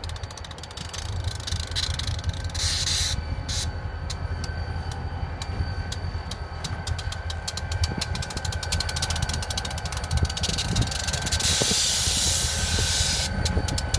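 Diesel locomotive idling with a steady low hum, broken by two abrupt hisses: a short one a few seconds in and a longer one of nearly two seconds near the end.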